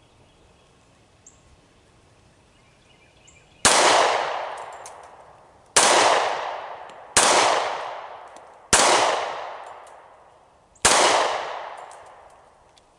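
Five shots from a Smith & Wesson M&P Shield 40 pistol in .40 S&W, fired at an uneven pace over about seven seconds starting nearly four seconds in. Each shot is followed by a long echoing tail.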